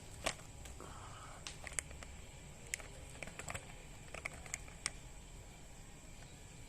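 A dozen or so small, sharp clicks and taps at irregular intervals, clustered in the first five seconds, over a faint steady hiss with a thin high whine.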